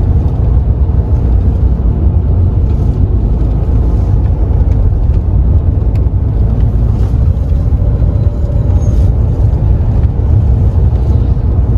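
Tata Safari SUV driving, heard from inside its cabin: a steady low rumble of engine and tyre noise.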